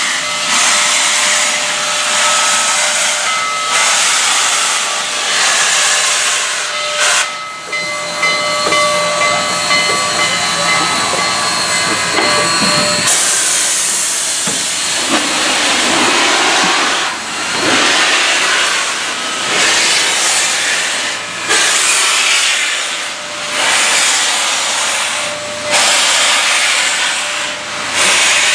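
Union Pacific 844, a 4-8-4 steam locomotive, pulling out at low speed with its cylinder cocks open, blowing excess water out of the cylinders: a loud steam hiss that surges about every two seconds with each chuff. Thin steady ringing tones sound over the hiss for roughly the first half.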